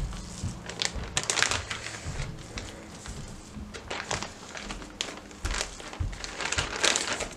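A large plastic freezer bag crinkling and rustling in irregular bursts as gloved hands push handfuls of minced meat into it.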